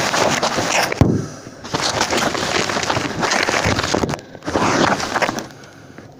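Hail and heavy rain pounding down: a dense clatter of hailstones striking in a loud rushing wash of rain. It dips briefly a couple of times and eases off near the end.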